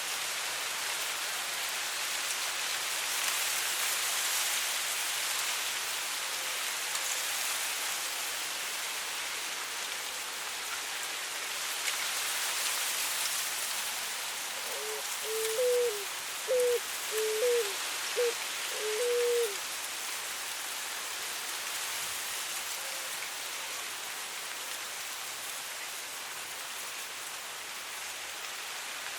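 Soft wind hissing through dry grass, swelling and easing in gusts. About halfway through, a West Peruvian dove (cuculí) gives a run of about six short cooing notes.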